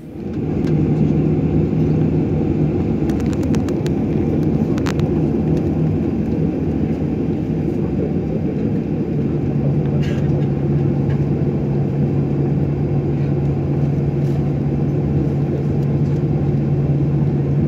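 Boeing 737-800 taxiing, heard from inside the passenger cabin: its CFM56-7B engines at low power make a steady drone with a hum that settles slightly lower about halfway. A few faint clicks come a few seconds in.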